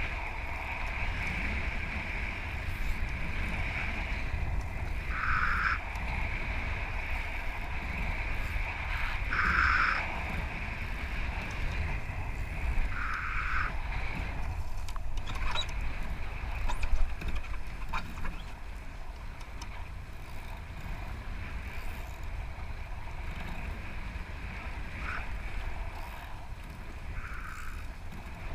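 Wind buffeting the microphone and water rushing past a foiling Moth sailing dinghy under way, with a steady high whine throughout that briefly swells a few times.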